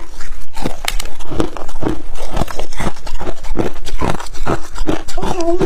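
Ice being crunched between the teeth: a loud, steady run of sharp crunches, about three a second.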